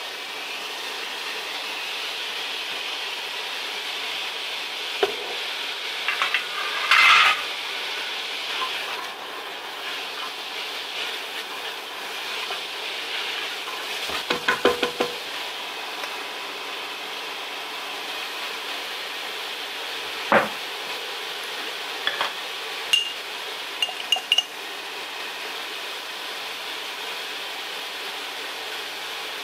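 Diced vegetables sizzling steadily in hot oil in a stainless steel pot, with scattered knocks and clinks of utensils against the pot, a quick cluster of them during stirring about halfway through.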